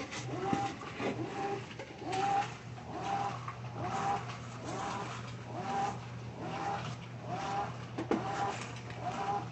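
Top-loading washing machine agitating, its motor whining in a steady rhythm of about two strokes a second over a constant low hum.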